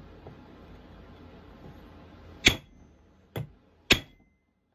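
Ball-peen hammer striking a flat file held on a chainsaw chain master link's rivet, which rests on an axe head: three sharp metal-on-metal strikes with a short ring, about two and a half seconds in and then two close together near the end, the middle one softer. The blows are mushrooming the rivet down to fasten the master link.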